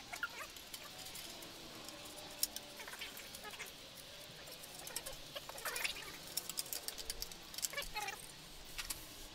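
Light clicks and clinks of hand tools and parts being handled on the engine, with a few short, high squeaks that bend in pitch, scattered through.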